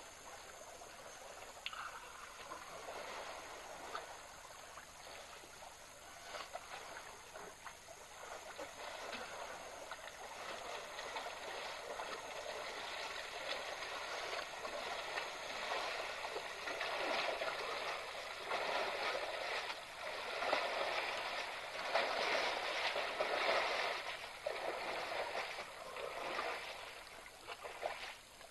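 African elephants wading and splashing in a waterhole: irregular sloshing and splashing of water that grows louder in the second half.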